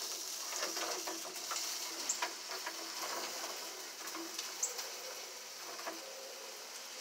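Sausage links sizzling on a George Foreman grill: a steady hiss with scattered small pops and ticks.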